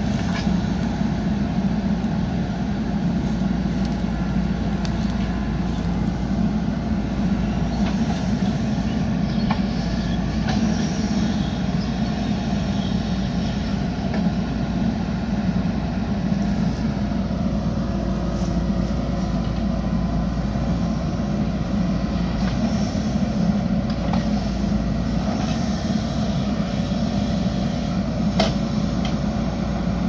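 Diesel engine of a JCB 3DX backhoe loader running steadily under load while its backhoe arm digs soil, with a few brief faint knocks.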